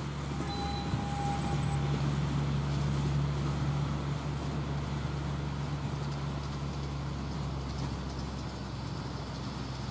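Distant miniature-railway locomotive running: a steady low hum that swells slightly over the first few seconds, then eases off.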